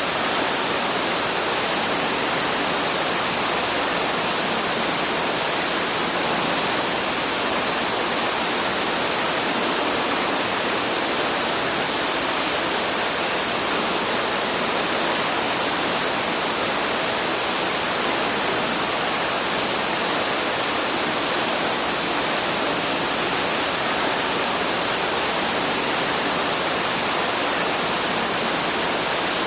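Waterfall rushing steadily, a constant even hiss of falling water with no changes.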